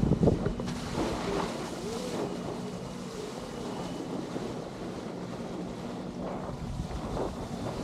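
Wind buffeting the microphone and water rushing past an electric hydrofoil board (eFoil) as it glides over calm sea, with a faint steady hum from the board's electric motor.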